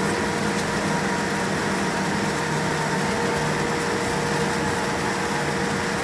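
Steady cabin noise inside a Boeing 787-9 taxiing on its Rolls-Royce Trent 1000 engines at low thrust: an even hum and hiss with a constant whine running through it.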